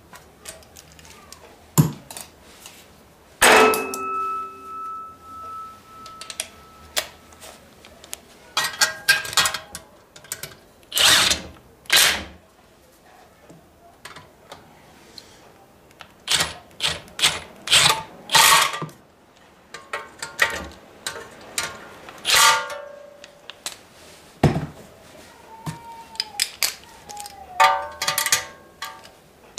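Hand tools and metal engine parts being handled during reassembly of a small engine: a string of separate clanks and clicks, one about three and a half seconds in ringing on for some three seconds.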